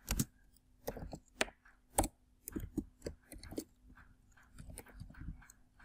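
Computer keyboard typing: irregular single keystrokes, a few sharp louder clacks in the first half, then lighter, fainter taps.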